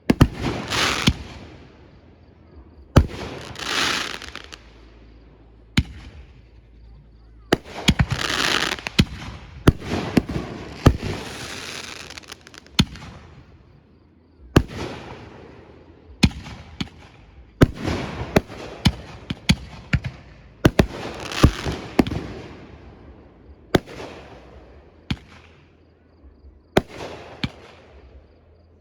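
Fireworks display: aerial shells bursting in a steady sequence of about two dozen sharp bangs, several followed by a long crackling, hissing tail.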